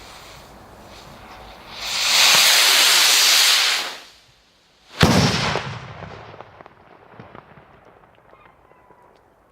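Zink 903 salute rocket going up with a loud hiss for about two seconds, then, about a second after the hiss stops, the single sharp bang of its salute charge, echoing away over the next two seconds.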